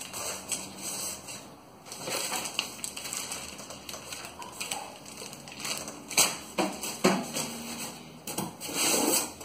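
Cardboard box flaps and plastic-bagged parts rustling and crinkling as they are handled and lifted out of a shipping box, with scattered light knocks.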